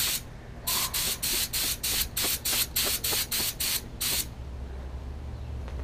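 Paint spray gun hissing in quick short trigger bursts, about four a second, as it coats small parts with paint; the spraying stops about four seconds in.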